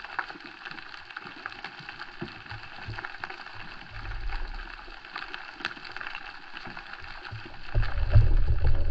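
Water heard from a camera in the sea: a steady fine crackling with scattered clicks, and a low rush of moving water that swells briefly midway and becomes the loudest sound near the end.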